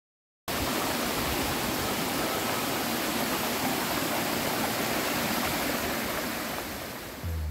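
Steady rush of a hill stream cascading over rock slabs, cutting in abruptly about half a second in. Music with a low note enters near the end.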